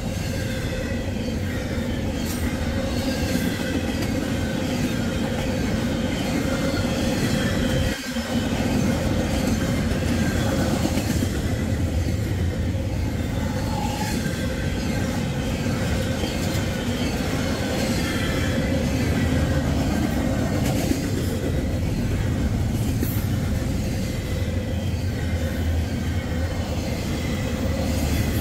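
Double-stack intermodal freight train's well cars rolling past close by: a steady rumble and clatter of steel wheels on the rails, with faint thin high-pitched wheel squeal over it.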